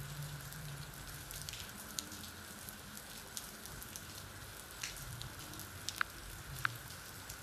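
Faint steady background hiss with a low hum, broken by a few brief soft clicks.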